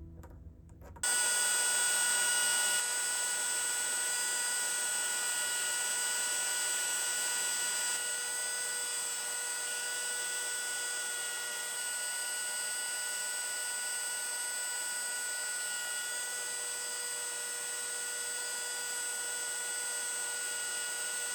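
A power tool switches on about a second in and runs steadily, a constant whine over a hiss, while the knife's handle is being shaped.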